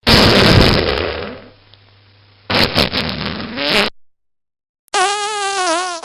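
Fart sound effects: a long noisy blast that fades out, then a shorter crackly, sputtering one about two and a half seconds in. Near the end comes a higher-pitched, wavering squeaky fart.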